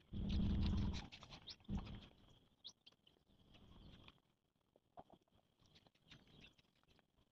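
Cow mooing: one low, steady moo about a second long at the start, then a short low call about 1.7 s in. Quieter after that, with faint scattered chirps.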